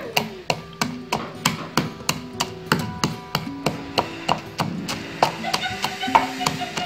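Wooden pestle pounding peanuts in a wooden mortar, a steady rhythm of about three dull knocks a second as the nuts are crushed.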